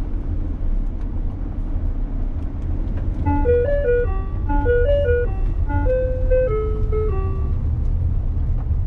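Hemglass ice cream van's chime melody playing a short tune of about fourteen steady notes from its loudspeaker, starting about three seconds in and lasting about four seconds, signalling to customers that the van is coming. Under it runs the van's steady low engine and road noise, heard from inside the cab.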